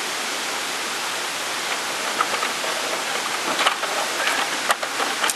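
Steady rushing noise like flowing water, with a few sharp knocks and clatters in the second half.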